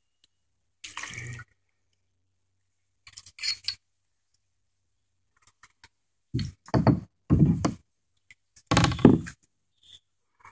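Kayak paddle knocking against a plastic kayak hull and splashing in the water, in a few irregular bursts, the strongest and deepest in a cluster over the second half.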